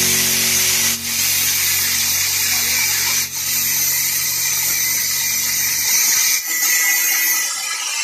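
Angle grinder cutting through iron wire mesh: a steady high-pitched grinding hiss, with brief dips about a second in, at about three seconds and past six seconds.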